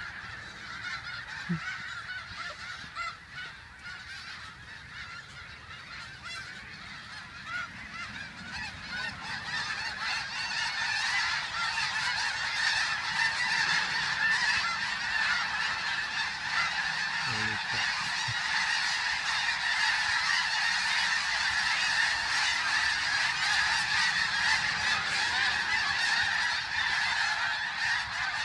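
A large flock of snow geese honking continuously in a dense, overlapping chorus. It swells louder about ten seconds in as much of the flock takes to the air.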